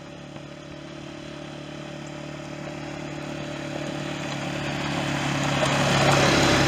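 ATV (four-wheeler) engine running at a steady pitch, growing louder as the quad approaches and passes close by about six seconds in.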